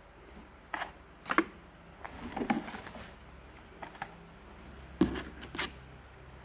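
Hands handling small hard objects at close range: a string of sharp clicks, taps and light knocks with short scraping sounds between them, the loudest coming about a second in and again around five seconds in.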